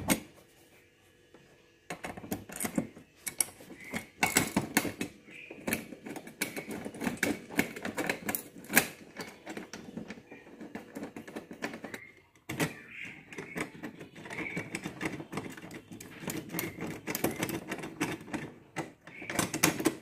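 Dense, irregular clicking and rattling of bolts with washers being fitted by hand through a metal TV wall bracket into the back of a flat-screen TV. There is a short break about twelve seconds in.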